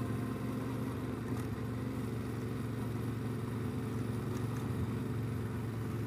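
Yamaha Ténéré 700's parallel-twin engine running steadily as the bike is ridden, a low, even drone with rushing noise over it.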